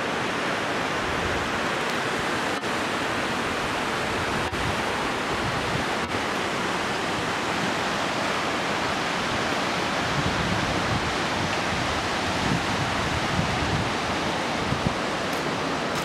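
Steady rush of a white-water mountain creek cascading over rocks, an even, unbroken noise of water.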